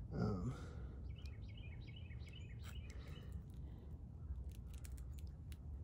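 A small bird chirping a quick repeated note, about four chirps a second, for roughly two seconds, over a steady low outdoor rumble, with scattered faint clicks afterwards.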